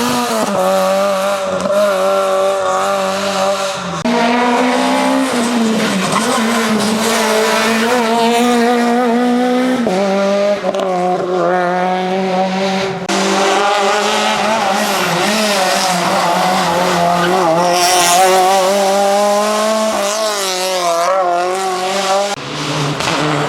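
Ford Fiesta RS WRC rally car's 1.6-litre turbocharged four-cylinder engine running hard at high revs, its pitch wavering up and down through throttle and gear changes. The sound jumps abruptly several times as it moves from one passage to the next.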